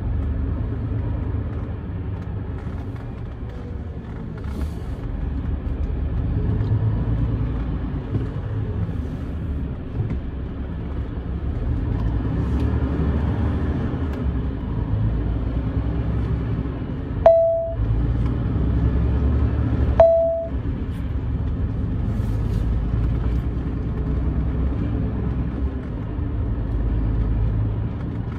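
Steady low engine and road noise from a truck driving at low speed through town streets, heard from the cab. About seventeen seconds in come two short beeps of the same pitch, just under three seconds apart.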